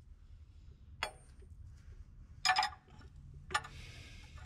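Steel hand tools clinking as a wrench and cheater bar are handled on an O2-sensor socket: a few light metallic clinks and ticks about a second apart, with a brief soft hiss near the end.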